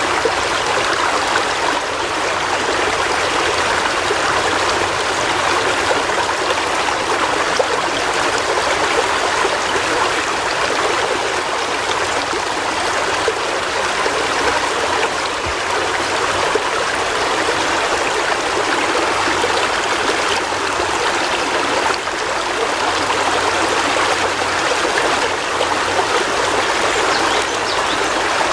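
River water flowing over rocks: a steady rushing and babbling wash with no breaks.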